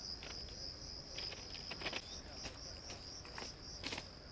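Crickets chirping steadily in a continuous high-pitched trill, with scattered short clicks and crunches that are loudest about two and four seconds in.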